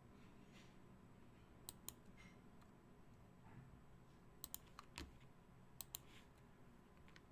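Near silence in a small room, broken by about seven light, sharp computer clicks, mostly in quick pairs; the loudest falls about five seconds in.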